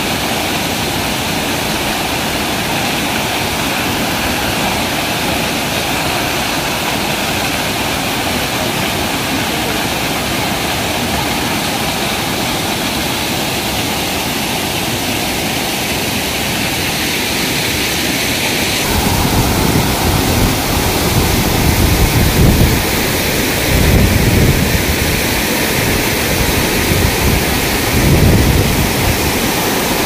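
Waterfall crashing steadily into a rocky pool, a loud, even rush of water heard up close. About two-thirds of the way in, a low rumble that swells and fades in gusts joins it.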